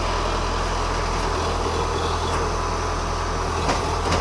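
An engine running steadily at idle, with a couple of short metallic knocks near the end.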